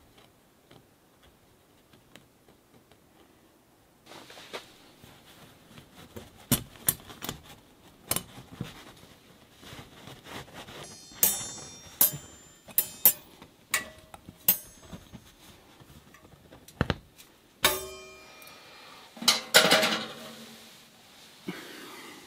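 A metal stove-jack mounting ring being handled and positioned against canvas: a run of irregular clicks, taps and light metallic clinks, some ringing briefly. The busiest, loudest clinking comes near the end.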